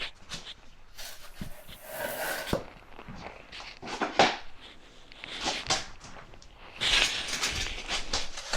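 Scattered scrapes, rustles and light knocks as vinyl planks and hand tools are handled and shifted on the floor, with a longer hissy scrape about a second in.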